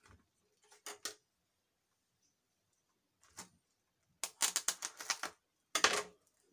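Plastic cling film being pulled off its roll and stretched over a dish: a few faint clicks, then bursts of quick crackling clicks in the last two seconds.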